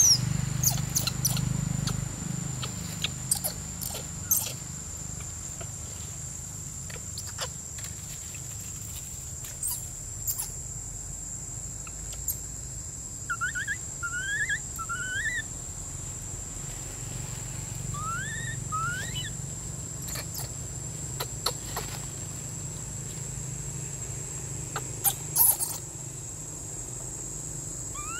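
Short rising squeaks from a young macaque: three in quick succession about halfway through, then two more a few seconds later. Under them runs a steady high-pitched whine, with scattered sharp clicks, the loudest near the start and near the end.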